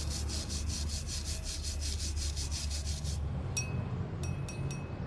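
Fast, rhythmic rasping strokes of a hand tool scraping metal, about six or seven a second, stopping about three seconds in. Then four short, high, ringing pings: one, then three in quick succession. A low steady hum runs throughout.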